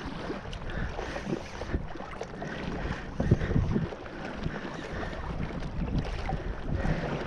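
Wind rumbling on the microphone over water sloshing around a kayak on a choppy sea, with a few low knocks a little over three seconds in.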